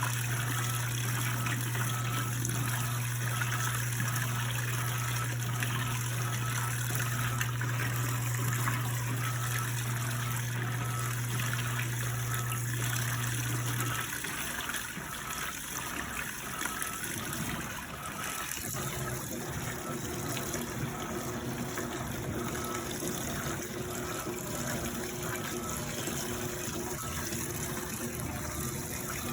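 Electrolux washing machine with water running and splashing inside it. A steady low hum stops suddenly about halfway through, and a higher steady hum comes in a few seconds later.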